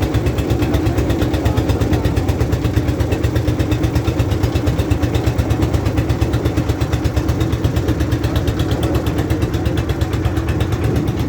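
Boat engine running steadily with a rapid, even pulsing chug.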